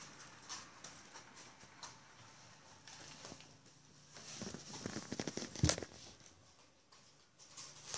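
Bichon Frise puppies' feet pattering and claws clicking on the hard floor of their pen: scattered light clicks, then a quick run of clicks about halfway through, ending in one sharp knock.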